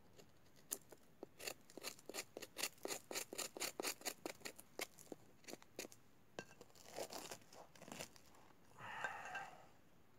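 Knife blade scraping the burnt flour crust off a campfire-baked corn flour loaf: a quick run of rasping strokes, about five a second, then a few slower ones. Near the end, a short crackle as the loaf is broken open by hand.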